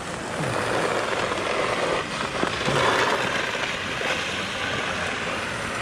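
Steady scraping hiss of ice skates gliding over outdoor rink ice, mixed with wind noise on the action camera's microphone.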